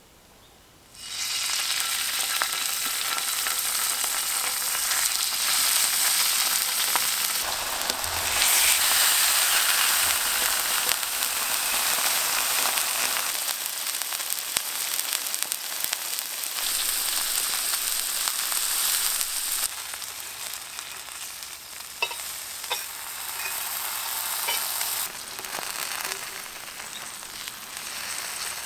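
Food sizzling in a hot pan: a dense hiss that starts suddenly about a second in, with a few sharp pops and crackles later on.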